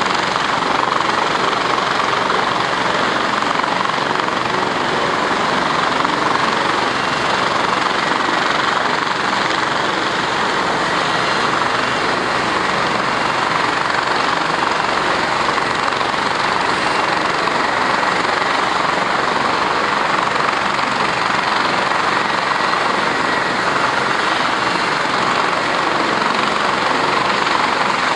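Cessna 152 light aircraft's engine and propeller running steadily as it taxis, heard as a constant rushing drone that holds the same level throughout.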